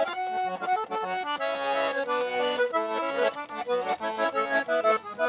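Accordion playing a lively melody over held chords, the notes changing quickly.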